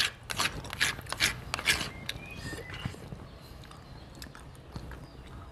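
Close-up chewing and lip-smacking of a mouthful of pentol meatballs: a run of wet clicks over the first two seconds, then quieter chewing.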